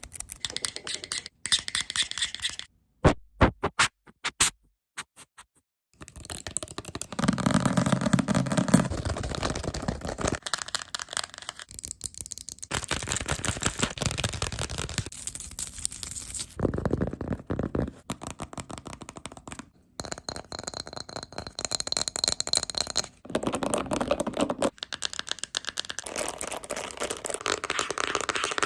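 Fast ASMR triggers: rapid tapping and scratching on assorted objects, switching to a different object every few seconds, with a short stretch of a few sharp isolated taps a few seconds in.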